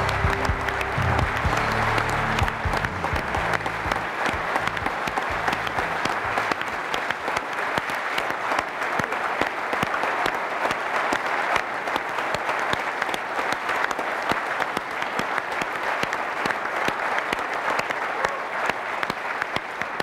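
Audience applause: many hands clapping steadily throughout. Music plays under it for the first few seconds and then fades out.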